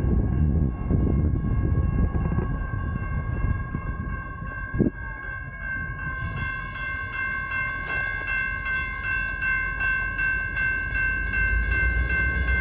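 Railroad crossing warning bell dinging rapidly and steadily as the crossing's red lights flash, its ringing growing clearer in the second half as the rider nears it. Underneath is a low rumble of wind and wheel noise from the moving electric unicycle, with one short thump just before halfway.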